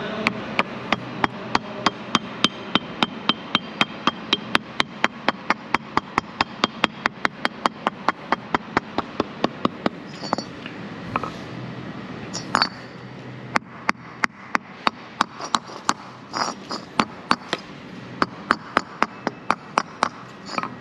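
Light, rapid hammer taps driving an ABS tone ring onto a rear wheel hub. For about the first ten seconds they come as an even run of about four taps a second, then as slower, scattered taps with pauses while the ring seats home.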